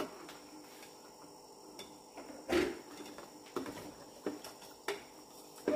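Steel ladle clinking and scraping against the inside of a stainless-steel pressure cooker as a watery bean curry is stirred: a few scattered clinks, the loudest about two and a half seconds in.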